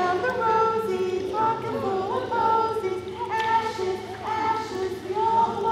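A group of adult voices singing a children's nursery-rhyme warm-up song together in held notes.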